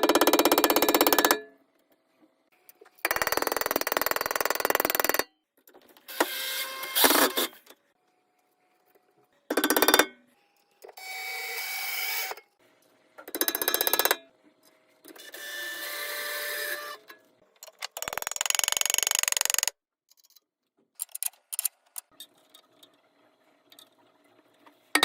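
Power tools working wood in a string of short, separate bursts, each one to two seconds long, with abrupt silent gaps between.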